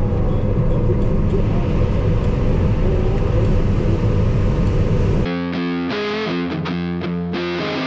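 Combine harvester's engine running steadily for about five seconds, then background music takes over.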